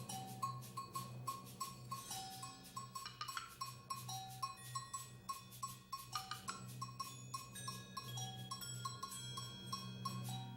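Percussion music: even, rapid strikes about four a second on a ringing, bell-like instrument, with a lower ringing note about every two seconds over a steady low hum.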